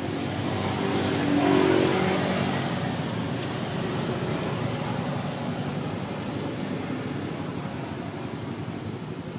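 A motor vehicle engine passing by: it swells to its loudest about a second and a half in, then fades into steady background noise.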